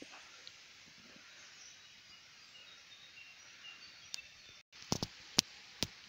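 Outdoor forest ambience: a steady hiss with faint, short, high chirps. About four seconds in it is broken by several sharp clicks and a brief moment of dead silence.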